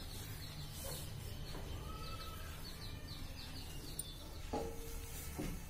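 Faint bird chirping, a quick run of short high chirps in the first half, over a steady low background hum.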